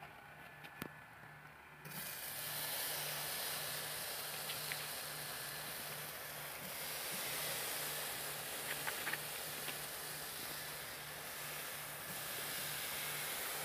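Seasoned steaks sizzling on the hot grate of a charcoal grill: a steady hiss that starts suddenly about two seconds in as the first steak goes down and carries on evenly, with a few light clicks.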